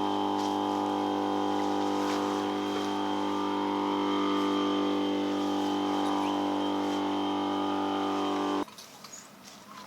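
A vehicle engine running at a steady, unchanging pitch, which cuts off suddenly near the end, leaving faint rustling.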